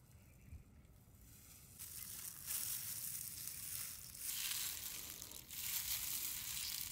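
Limes being squeezed by hand over a tray of raw fish: a wet, crackly crushing and spattering that starts about two seconds in and comes in three stretches.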